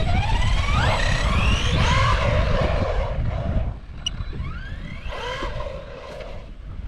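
Brushless motor of an Arrma Big Rock 3S RC monster truck, geared with a 20-tooth pinion, whining and rising in pitch as the truck accelerates, in several pulls. Heavy wind buffets the microphone through the first half and eases a little before the middle.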